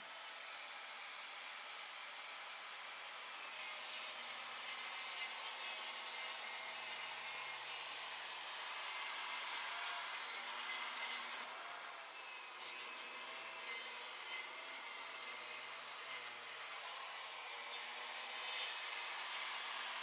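Power saw ripping a wooden cabinet panel lengthwise, with a steady whine that gets stronger a few seconds into the cut.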